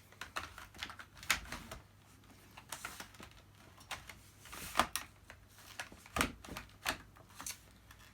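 Irregular clicks and knocks of a Dyson DC50 vacuum's plastic parts being handled and fitted back together, the sharpest knock a little before the middle.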